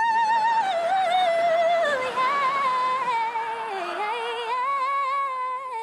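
A young woman howling in imitation of a wolf: one long, wavering sung note that slides down and back up in pitch twice and breaks off suddenly near the end.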